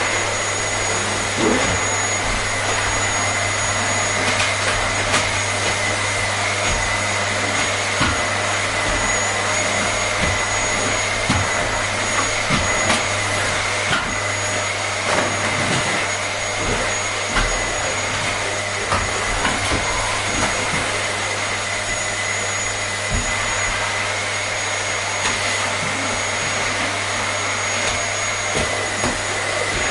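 Vacuum cleaner running steadily, a constant noise with a high whine held at one pitch and a low hum beneath. Light ticks come and go through it.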